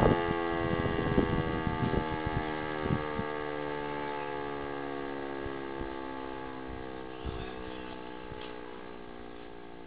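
E57 electric motor siren winding down after its tone is cut off: the howl falls slowly in pitch and fades away as the rotor coasts to a stop. A few soft knocks sound in the first three seconds.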